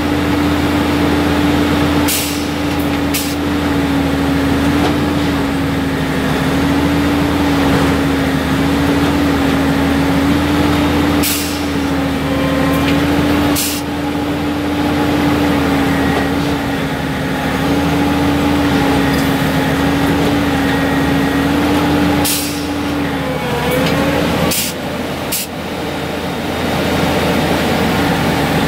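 Heavy rail track maintenance machine working: a steady engine hum with a constant, slightly wavering whine, broken now and then by short sharp bursts of noise.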